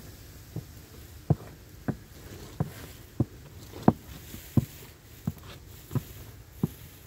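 A large open iron pan of sugarcane juice boiling for jaggery (gur), with big bubbles bursting in the thick juice in a steady, even rhythm, about three every two seconds.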